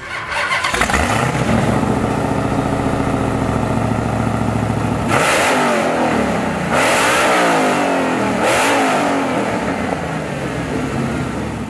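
Mopar 'Hellephant' 426 cubic-inch supercharged Gen 3 HEMI V8 crate engine fires up and idles, then is revved hard three times, about a second and a half apart, before settling back to idle.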